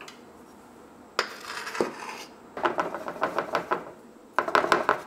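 Round metal cake pan full of batter being tapped and jiggled against a plastic board to settle the batter and knock out air bubbles: two quick runs of small rattling knocks, about eight a second, after a brief scrape about a second in.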